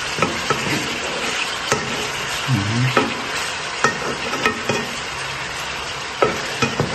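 Pieces of beef tenderloin searing in hot sunflower oil in a pan: a steady sizzle, with scattered sharp clicks of a utensil against the pan.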